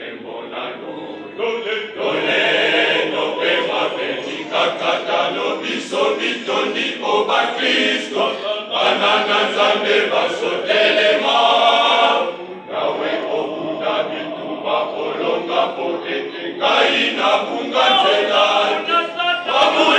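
Choir of boys and young men singing, with a brief break about twelve and a half seconds in.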